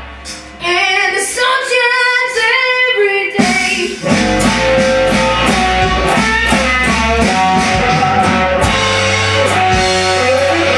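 Slow electric blues on electric guitar. First comes a short lead phrase with bent notes and no bass under it, then bass and drums come back in about three and a half seconds in.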